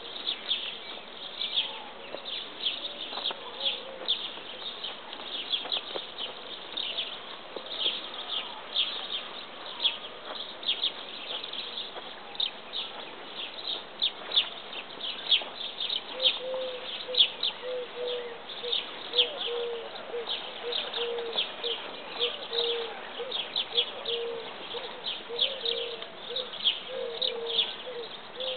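Small birds chirping busily outdoors, quick high chirps overlapping throughout. From about the middle on, a low call repeats in short even notes, a little under two a second.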